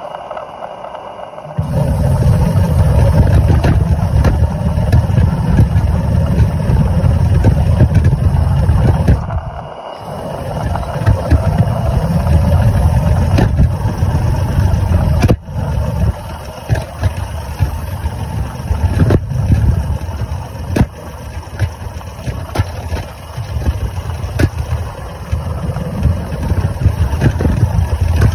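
Maxitrak Sentinel DG6 live-steam model wagon on the move, heard from on board: a steady low rumble of its engine and wheels on paving, with many small knocks and clicks. It gets going about two seconds in and eases off briefly around ten seconds in.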